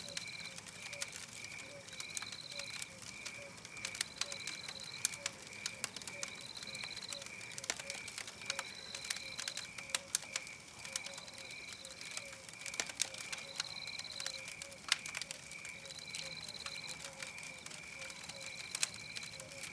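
Wood fire crackling with irregular sharp pops, over a looped night-forest chorus: a high chirp repeating about two and a half times a second, a higher trill recurring about every two seconds, and a faint low repeated call.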